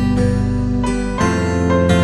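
Gentle instrumental background music, its notes struck in a regular pattern, with a change of chord just over a second in.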